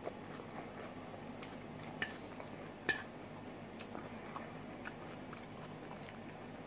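A person chewing a mouthful of salad, with scattered short clicks of a metal fork against a stainless steel bowl as he picks up the next forkful; the sharpest click comes about three seconds in.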